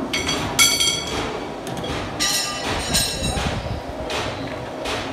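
Bolt-threading machine cutting threads onto a steel round bar, running steadily with the clatter of metal swarf. High metallic ringing comes twice, in the first second and again around the middle.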